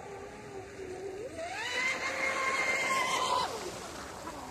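Electric RC boat's motor whining, rising in pitch about a second in as it speeds up, held high, then dropping back near the end as the throttle eases.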